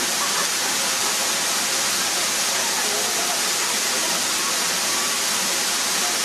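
La Mina Falls pouring into its rock pool: a loud, steady, even rush of falling water.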